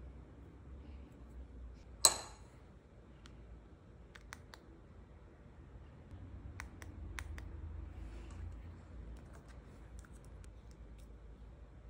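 Scattered light clicks and taps from nail-art work at a table, with one sharp click about two seconds in and fainter ticks after it.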